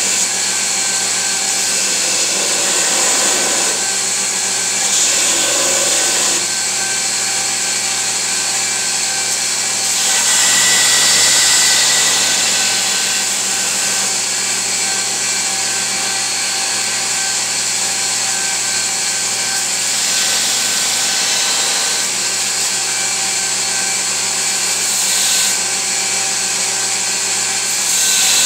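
Belt grinder running steadily while a steel chef's knife blade is pressed against the belt to grind its profile. The grinding hiss swells louder in several stretches, most clearly a little over a third of the way in and again near the end.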